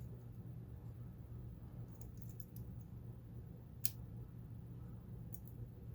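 Faint small metallic clicks and ticks of tools working inside a pin-tumbler challenge lock, with one sharper click about four seconds in, over a steady low hum. The core is binding, which the picker puts down to a spring jammed where it doesn't belong.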